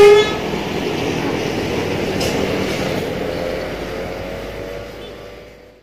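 Steady outdoor background noise with a faint passing motor, opening with a brief pitched tone and fading out to silence near the end.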